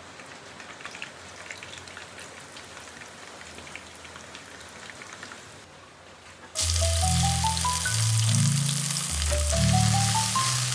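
Hot cooking oil crackling in a wok: a faint sizzle with scattered small pops. About six and a half seconds in, loud background music comes in over it, with a bass line and rising runs of short, bright mallet-like notes.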